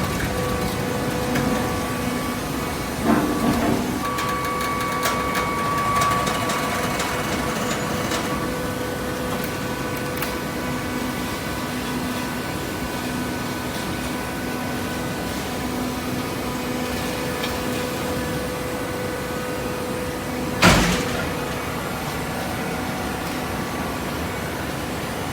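Paper baler machinery running with a steady hum, with a couple of knocks about three seconds in and a single loud clunk near the end.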